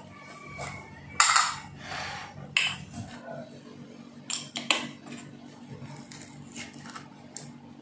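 A spoon clinking and scraping against tableware, with a handful of sharp clicks, as sambal roa is served.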